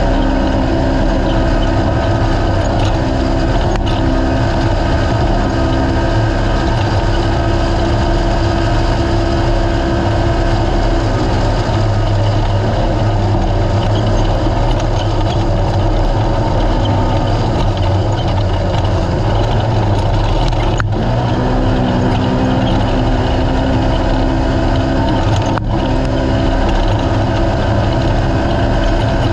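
Naturally aspirated UTV race car's engine running hard in a steady, loud drone, its pitch shifting a little now and then.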